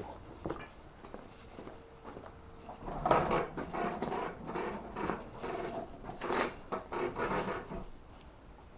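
Tools and parts being handled by hand: irregular clicks, scrapes and rustling, mostly in the middle of the stretch, with no power tool running.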